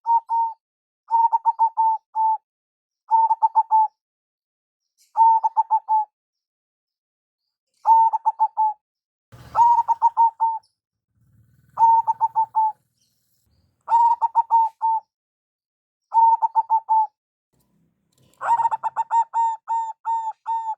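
Zebra dove (perkutut) cooing song: about ten phrases of rapid staccato coo notes, each about a second long, repeating roughly every two seconds. A longer, denser phrase comes near the end.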